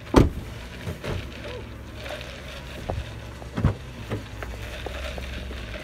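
Low wind rumble on a handheld phone's microphone while walking, with a few sharp handling knocks and bumps.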